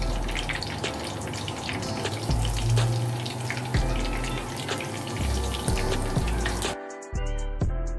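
Garlic cloves and a sprig of thyme sizzling in hot oil in a frying pan: a steady hiss with many small sharp crackles. About seven seconds in it cuts off and piano background music takes over.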